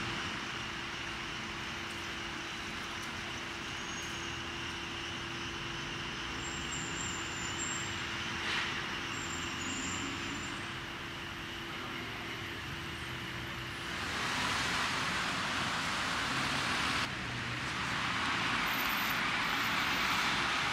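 Steady outdoor hum and hiss of industrial plant and traffic around the brewery buildings, with a steady tone underneath. About two-thirds of the way in, the tone drops out and the sound changes abruptly to a louder hiss, shifting again a few seconds later.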